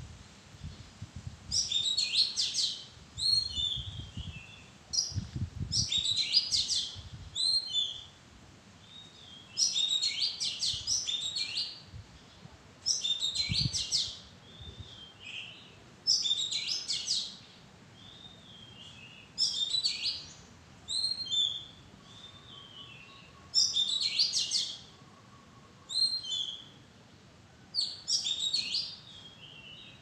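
Oriental magpie-robin singing: short, varied whistled phrases, one every two to three seconds.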